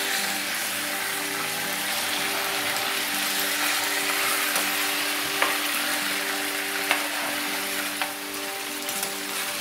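Chicken sizzling steadily in hot oil on a flat iron tawa griddle, with a few sharp clicks of a metal spatula against the griddle as the pieces are turned.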